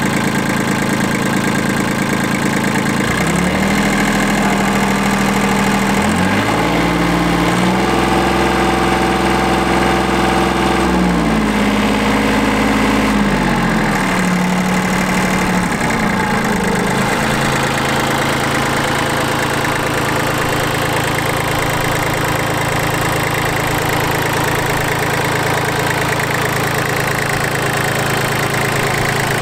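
Yanmar FX175 compact tractor's diesel engine idling, then revved up in steps, held at higher speed for a few seconds, and brought back down to a steady idle.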